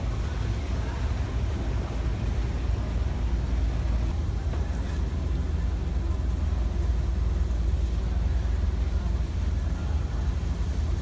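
Steady low rumble of a ferry's engines heard on its enclosed vehicle deck, with water gushing and splashing onto the steel deck.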